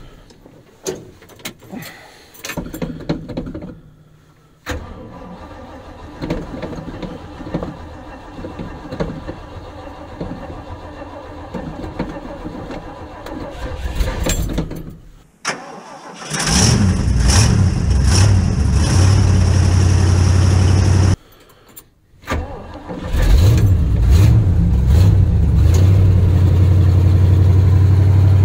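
Cold start of a 1974 Ford F-350's 390 V8 after sitting for a couple of weeks: after some soft clicks in the cab, the engine catches about sixteen seconds in, runs for about five seconds and cuts out abruptly. It is started again a moment later, stumbles briefly and settles into a steady idle.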